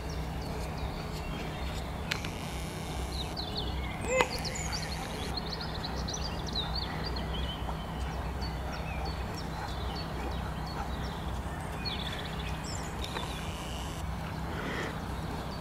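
Outdoor ambience of small birds chirping and singing, with many short calls scattered throughout over a steady low hum. A single sharp knock comes about four seconds in.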